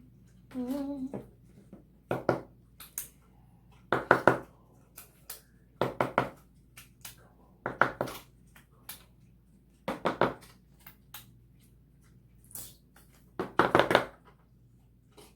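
Slime being squished and kneaded by hand, giving crackling, clicking squelches in bursts about every two seconds.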